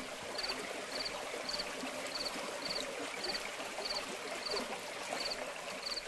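Shallow stream running and trickling over rocks, with a cricket's short high chirp repeating evenly, about every 0.6 seconds.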